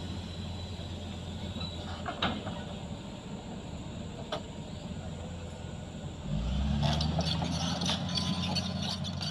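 Hitachi hydraulic excavator's diesel engine running steadily, with a few sharp metallic clicks. About six seconds in the engine note rises and gets louder, with a rapid clanking rattle, as the arm and bucket are raised.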